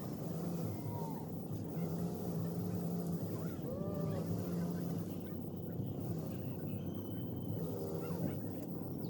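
Birds calling in short arched notes over a steady low rumble.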